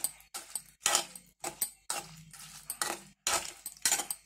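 Metal spatula scraping and clinking against a metal pan, about two strokes a second, as fried prawns are stirred through a thick sauce.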